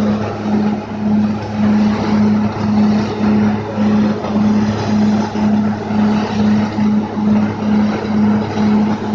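Truck-mounted borewell drilling rig running under load: a steady low engine drone and a hum that pulses about one and a half times a second, over a dense rushing noise.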